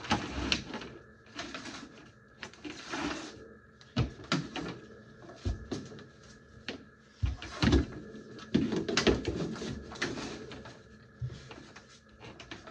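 Irregular knocks, clatters and rustling of household objects being moved and handled by hand, with a few sharper bumps, over a faint steady hum.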